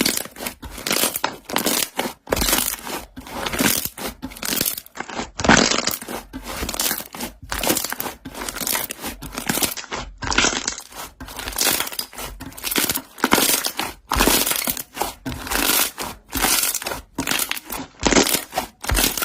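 Slime full of trapped air bubbles being squeezed and pressed by hand, the bubbles popping in repeated crackling, crunchy squishes about once or twice a second with short pauses between.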